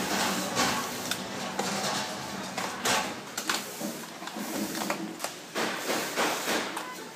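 Plastic parts of a robot vacuum cleaner's opened chassis knocking, clicking and rattling as the brush and motor assembly is worked loose and lifted out by hand, in irregular clatters with the sharpest knock about three seconds in.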